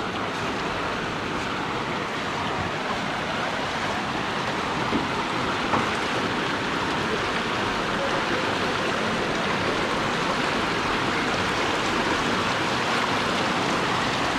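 Steady, loud rush of floodwater running over a road, with two brief knocks about five and six seconds in.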